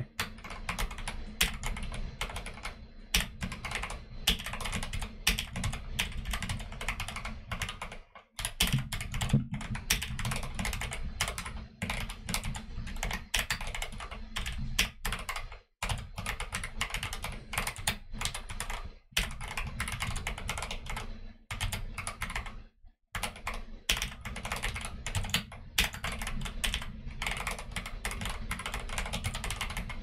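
Fast typing on a custom mechanical keyboard, a YMDK Wings in Arisu layout with Akko Jelly Black linear switches and Akko Neon keycaps: a rapid, continuous stream of keystroke clacks, broken by a few brief pauses.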